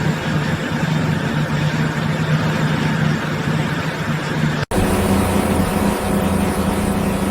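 Machinery running with a steady low hum and noise. About four and a half seconds in it drops out for an instant and comes back with a slightly higher hum.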